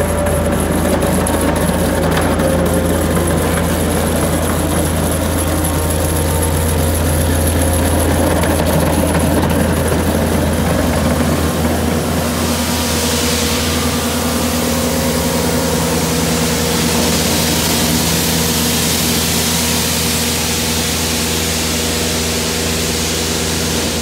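Bobcat skid-steer loader's engine running under load while its milling head attachment grinds a keyway groove into a concrete floor: a steady engine drone with a harsh grinding hiss over it. The grinding hiss grows stronger about halfway through.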